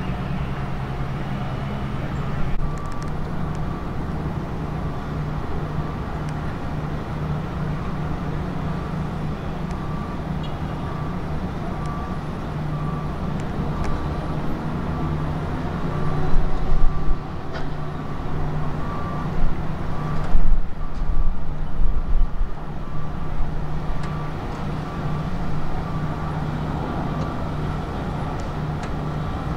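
A heavy diesel engine runs steadily, most likely the mobile crane's engine powering the hoist as it lowers a helicopter main rotor blade. The sound grows louder and rougher for several seconds just past the middle.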